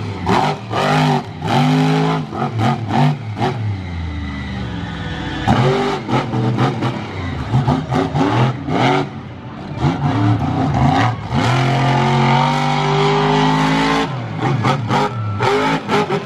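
Monster truck engine revving hard up and down over and over as the truck accelerates, jumps and crushes cars, with sharp bangs among the engine sound.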